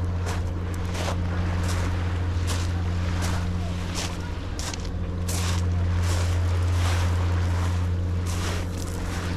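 A steady low motor hum, easing briefly about four to five seconds in, over small waves splashing at the shore at irregular intervals.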